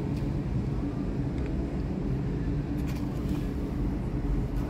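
Steady low mechanical hum, engine-like, with a few faint crunches from a cat chewing dry kibble.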